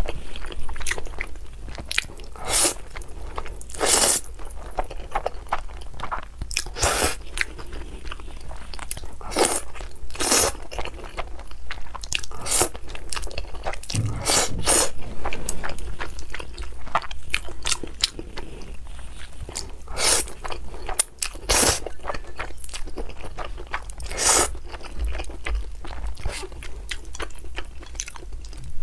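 A person chewing and slurping jajangmyeon (thick noodles in black bean sauce) and glazed eel: a continuous run of irregular mouth sounds, with a louder slurp or smack every few seconds.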